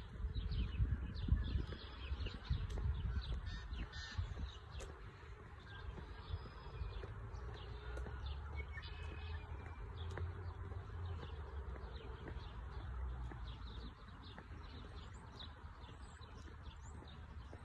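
Wild birds calling around a reedy pond: many short chirps all the way through, with a few longer calls among them. Wind rumbles on the microphone, strongest in the first couple of seconds.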